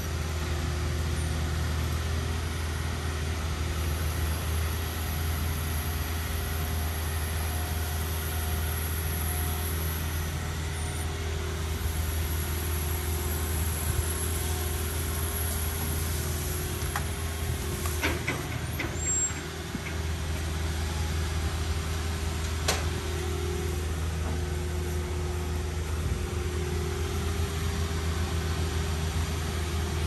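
Crane barge's engine running steadily with a low, even hum. A few sharp clicks come about two-thirds of the way through.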